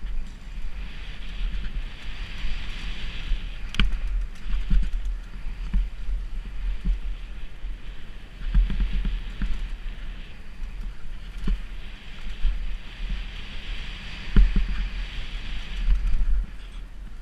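Kona Process 167 full-suspension mountain bike descending a dirt trail at speed: tyres rolling and skittering over the dirt, with scattered sharp knocks and rattles from the bike over bumps, the loudest about four seconds in and again near the end. Wind buffets the microphone throughout.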